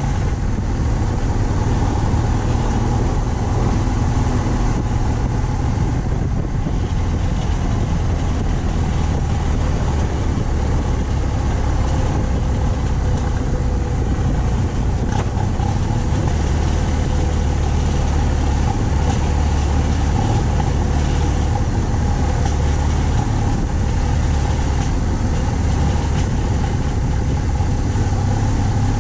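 BMW R 1200 C's boxer twin engine running steadily as the motorcycle cruises, with a low rumble under the rush of wind and road noise.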